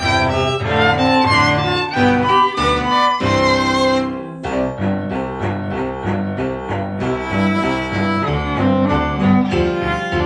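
A piano quartet of violin, viola, cello and piano playing a hymn-like piece. About four seconds in, the texture changes from long sustained chords to shorter, evenly repeated notes.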